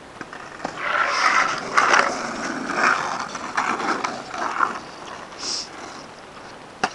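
Skateboard wheels rolling and scraping over rough asphalt in uneven, rattling surges, then fading, with a single sharp click near the end.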